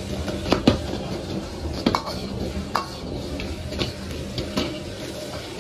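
Metal ladle scraping and knocking against a steel wok as diced chicken and onion are stir-fried, in irregular clinks and scrapes about every half second to a second, over a steady low hum.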